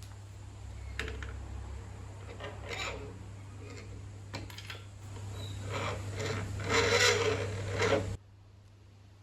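Hand-work noises of metal parts and tools: scraping and rubbing with a few light clicks, the loudest scraping about seven seconds in. A steady low hum runs underneath and cuts off suddenly about eight seconds in.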